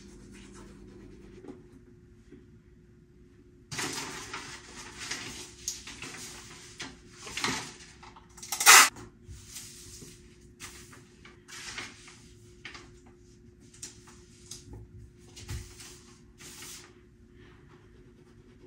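Manual toothbrush scrubbing teeth in short, irregular strokes, with one louder sharp sound about nine seconds in. It starts after a few quiet seconds.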